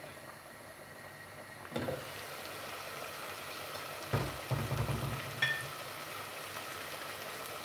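Glass lid lifted off a pot about two seconds in, after which the sauce sizzles and bubbles steadily in the open pot. A few knocks and a short high ping come near the middle.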